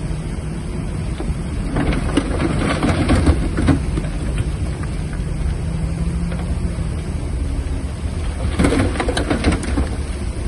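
Bulldozer's diesel engine running with a steady low hum, with two stretches of crackling, rattling noise, about two seconds in and again near the end.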